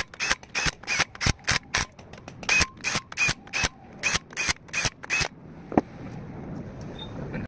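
Hammer striking metal during a truck differential refit: about twenty sharp, ringing blows, a few a second, that stop about five seconds in, followed by one lighter knock.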